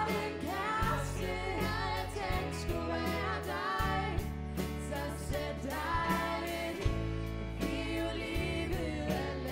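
Live pop band: vocals sung in Danish over electric bass, drum kit and keyboard.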